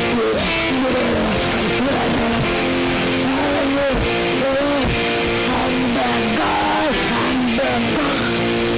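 Loud music with held notes that step and glide in pitch, continuous throughout.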